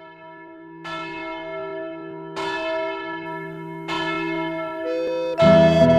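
A church bell tolling slowly, three strikes about a second and a half apart, each ringing on. Near the end, instrumental music comes in loudly.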